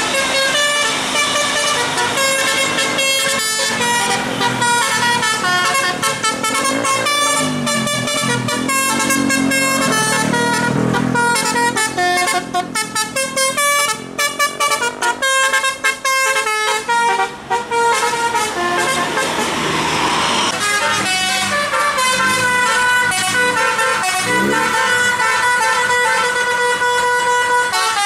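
Tour-bus 'telolet basuri' multi-tone musical air horns playing a melody, note after note stepping up and down without a break. A bus diesel engine rises in pitch underneath a couple of times as it labours up the climb.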